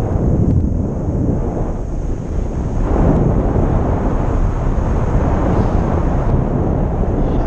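Wind from a paraglider's flight buffeting the microphone of a pole-mounted action camera: a loud, steady rumbling rush that grows louder about three seconds in.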